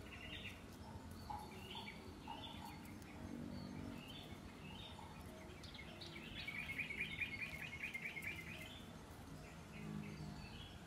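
Birds chirping in the background, short rising calls repeated about once a second, with a fast trill of rapid notes about six seconds in, over a steady low background hiss.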